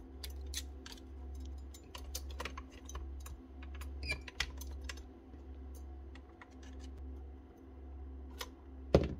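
Light, irregular clicks and taps of a new driver assembly being worked into a DeWalt cordless nail gun's housing and lined up with the rods and springs inside, over a steady low hum. A sharper knock comes near the end.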